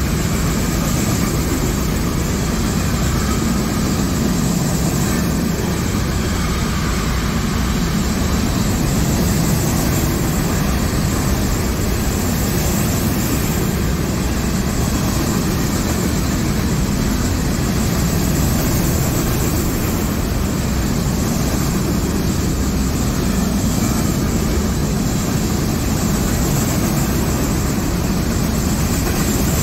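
CSX freight train's hopper cars rolling past close by: a steady, loud rumble of steel wheels on the rails.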